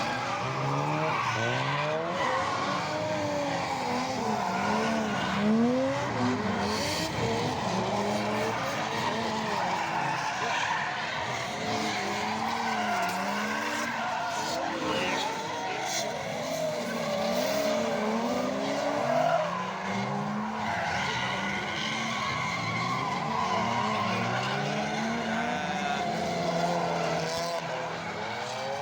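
Drift cars on a circuit: engines revving, their pitch climbing and dropping again and again with throttle and gear changes, over tyres squealing and skidding.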